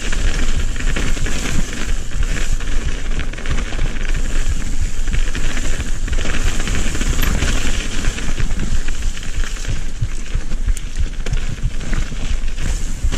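Mountain bike ridden over a dirt forest trail: a steady rumble of tyres on the ground with frequent small knocks and rattles from the bike over bumps, and wind buffeting the camera microphone.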